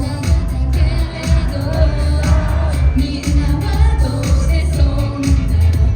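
Pop song performed live: singing over a loud beat with heavy bass.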